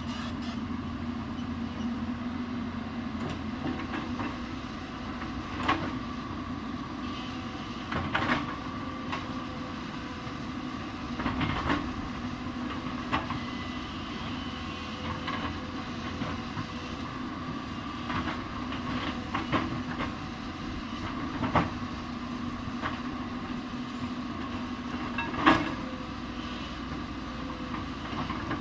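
Hyundai 220 excavator's diesel engine running steadily while it digs, with occasional sharp metallic clanks and knocks, the loudest near the end.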